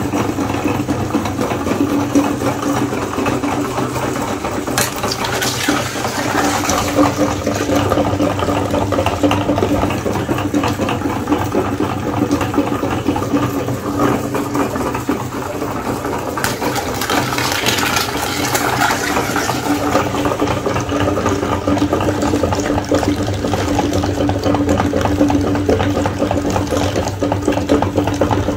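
Electric meat grinder running steadily with a humming motor while eggs are pushed through it, giving wet crunching and squelching noises.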